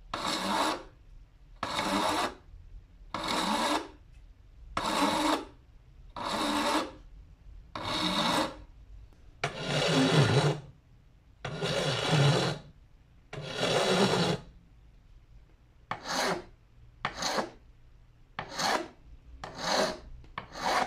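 Hand file rasping across the bare end of a black-painted metal hand-plane part held in a vise: about nine long, even strokes, then five shorter, quicker strokes near the end.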